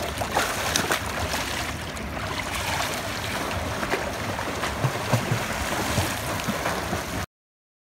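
Water splashing and churning as a swimmer sprints butterfly in a pool, a steady wash of water noise broken by the short splashes of the strokes. The sound cuts off abruptly near the end.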